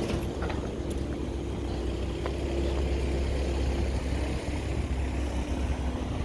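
A car engine idling close by, a steady low hum with a faint steady tone above it that fades about two-thirds of the way through.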